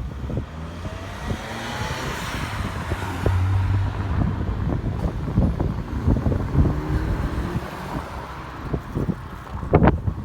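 Keikyu electric train running past, its motors giving a rising whine in the first couple of seconds as it picks up speed, with wheel and running noise that swells in the middle. Wind buffets the microphone, and there is a sharp knock near the end.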